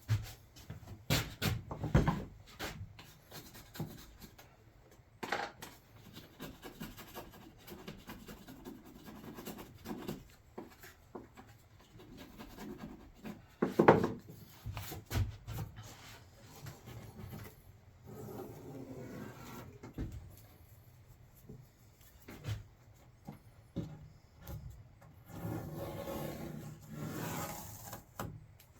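Wood being handled: scattered knocks and rubbing or scraping, with one sharper knock about halfway through and a longer stretch of rubbing near the end. No saw is running.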